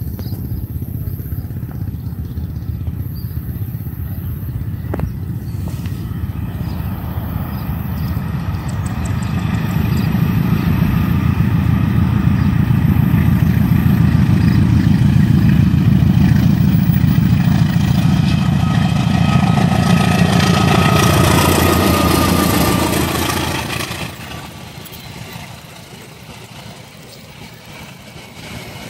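Diesel-electric locomotive CC 203 hauling a passenger train as it approaches. Its engine rumble builds to its loudest past the middle, with higher steady tones joining it shortly before it drops off suddenly. Then comes the quieter rolling noise of passenger coaches passing on the rails.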